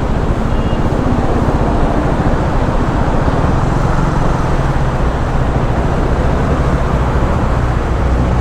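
Motorcycle engine running steadily while riding, with wind and road noise rushing over the microphone.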